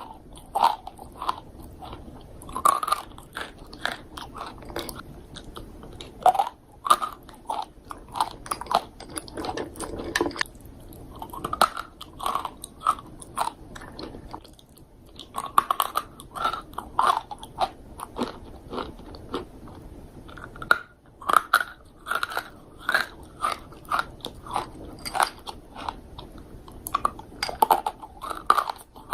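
A person biting and chewing crunchy dried fruit: a run of sharp, irregular crunches with a short pause about halfway through.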